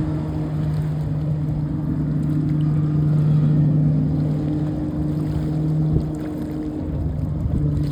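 Motorboat engine running at a steady low pitch. The drone eases for a moment about six seconds in, then picks up again.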